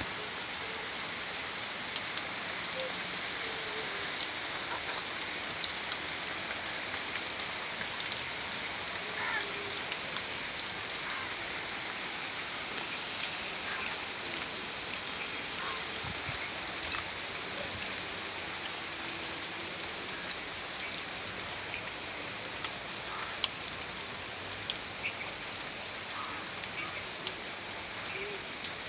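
Heavy rain falling steadily, a constant hiss with scattered sharper ticks of single drops striking nearby surfaces.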